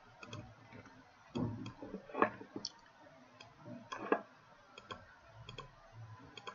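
Computer mouse clicking now and then, many clicks as quick double ticks, with a few louder knocks about a second and a half, two and four seconds in.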